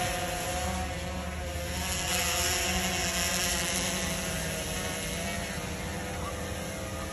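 Camera drone's propellers whining steadily as it flies out over the water, slowly fading as it carries a mackerel bait away on a line.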